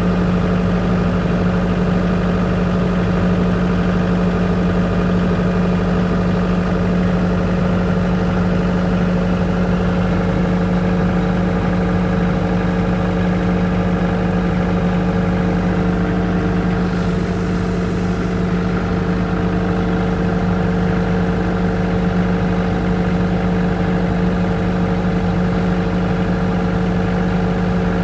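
Generator engine running steadily at a constant speed, a continuous even drone with no change in pitch.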